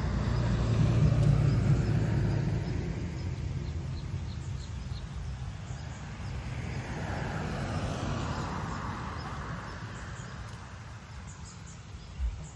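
Road vehicles passing by one after another. The first is loudest about a second in with a low rumble and fades away; a second rises and fades again around eight seconds in.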